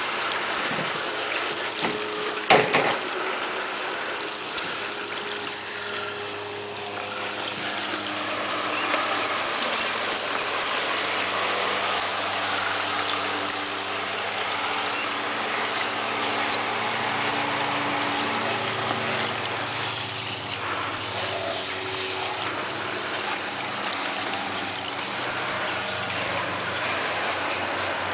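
Garden hose spray nozzle spraying water into a plastic kiddie pool: a steady hiss of spray and splashing. A sharp clack sounds about two and a half seconds in.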